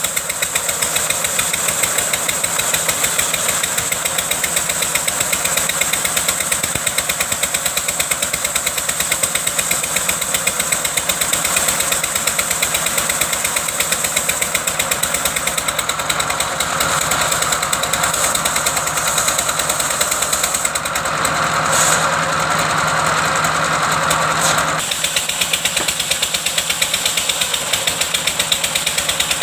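Engine of a wood-cutting machine running steadily with a fast, even beat. Its sound grows fuller for several seconds about two-thirds of the way through, then drops back abruptly.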